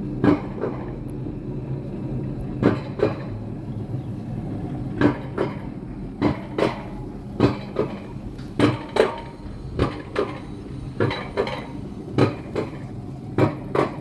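Alpine coaster sled being hauled up the lift section of its steel track: a steady low rumble with sharp metallic clacks that come in pairs, a pair every second or so.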